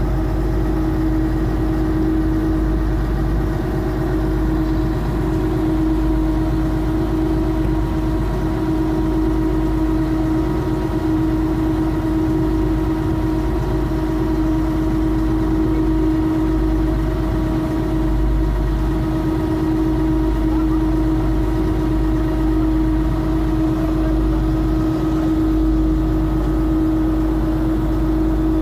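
A boat's engine running steadily while under way, a loud even drone with a strong low hum that does not change.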